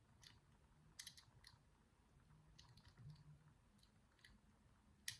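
Faint, scattered metal ticks and scrapes of a lock pick and tension tool working the levers inside an ABUS 425/45 four-lever padlock, with a sharper click near the end.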